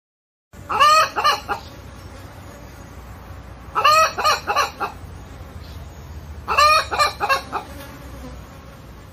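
A domestic hen clucking in three bursts about three seconds apart, each a loud first note followed by several quicker, shorter clucks, over a steady low background hum.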